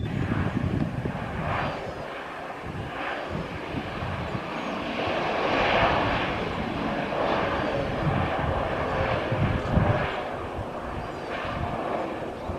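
Jet airliner passing, an AirAsia jet, its engine noise swelling to a peak about halfway through and then easing off. Wind buffets the microphone throughout.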